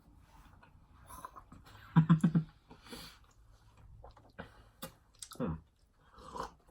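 Faint scattered clicks and mouth sounds of chewing a chewy caramel, peanut and nougat candy bar, with two short hums about two seconds in and again past the middle.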